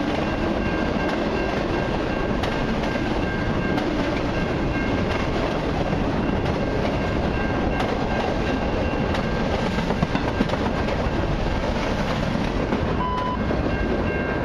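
Freight train of autorack cars rolling past at speed: a steady rumble of steel wheels on rail, with light clicking over the rail joints and a faint steady high whine above it.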